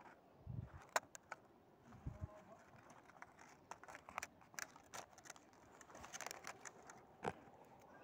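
Faint handling noise from a thin clear plastic tub being held and tilted: scattered light clicks and crackles of the plastic, the sharpest about a second in, with a couple of short low thumps near the start.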